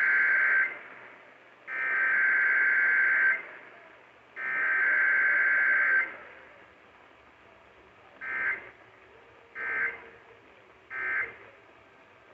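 Emergency Alert System data bursts over AM radio: the first header burst ends just after the start, two more long header bursts follow, then after a pause three short end-of-message bursts about a second and a half apart. The headers run straight into the end-of-message with no attention tone, as in a station's EAS test, sent here in place of relaying the severe thunderstorm warning.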